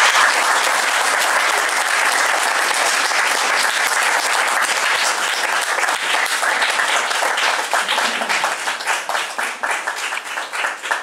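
A small audience applauding. The clapping thins out near the end into a few separate claps.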